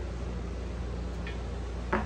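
Hand tools being handled on a small-block Chevy 350 engine block against a steady low hum: a faint tick about a second in, then a short, sharper knock near the end.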